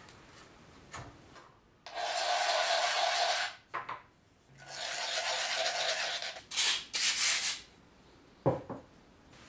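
A fired ceramic cup rubbed hard against an abrasive board, a dry grinding rasp as the rough foot is smoothed. There are two long strokes, then two shorter ones, and a light knock near the end as the cup is set down or tapped.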